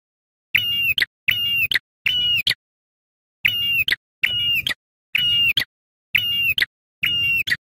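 Ashy tailorbird (prenjak kepala merah) calling: eight short, sharp, identical notes of about half a second each, each ending in a quick upward flick. The notes come in a steady series with a slightly longer pause about a third of the way through, and dead silence between notes.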